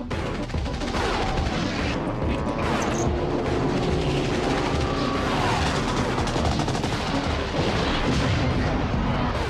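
Soundtrack music mixed with air-combat sound effects: rapid machine-gun fire against aircraft engine noise, with some engine sounds gliding up and down in pitch.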